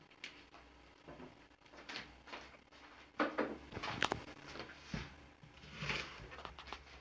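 A few scattered knocks and clatters of kitchen handling, the loudest about three to four seconds in: a plastic oil bottle set down and an onion handled on a plastic cutting board.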